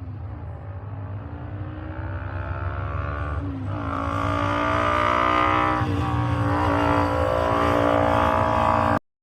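Classic race car's engine at full throttle on a hillclimb, approaching and growing louder, with gearshifts about three and a half and six seconds in where the engine note drops and climbs again. The sound cuts off abruptly near the end.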